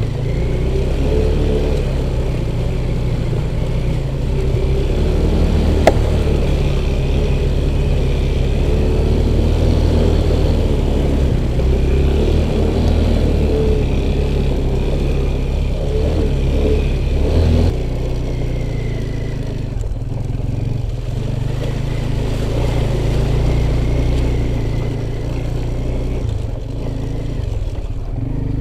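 Off-road motorcycle engine running while riding, engine speed rising and falling, with a sharp click about six seconds in.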